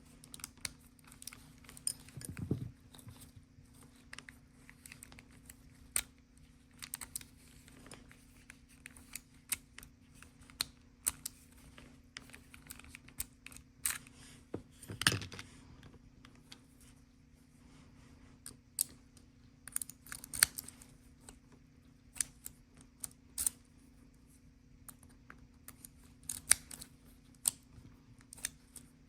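Irregular small metal clicks, taps and light scrapes of tools and parts being handled as an Acura/Honda ignition lock cylinder is worked on by hand, over a faint steady hum.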